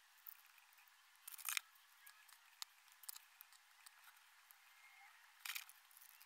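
Near silence broken by faint, scattered clicks and rustles of small plastic LEGO pieces being handled and pressed together; the louder clicks come about a second and a half in and near the end.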